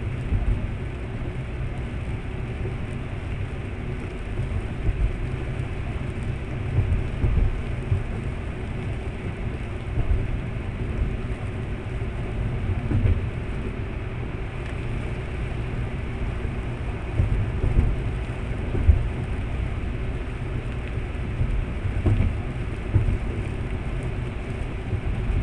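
Car driving on a wet road, heard from inside the cabin: a steady low rumble of engine and tyres with a hiss of spray, and irregular louder low bumps now and then.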